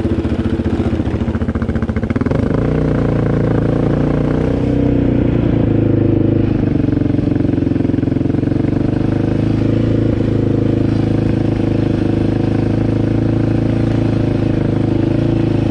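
Off-road vehicle engine running loud and close at a fairly steady speed, its pitch shifting slightly about two seconds in.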